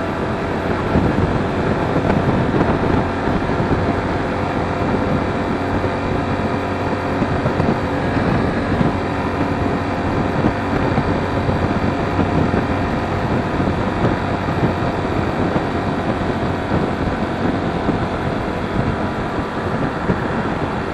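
Sinnis Terrain T125's 125cc single-cylinder engine running steadily while the motorcycle is ridden, with wind rushing over the microphone.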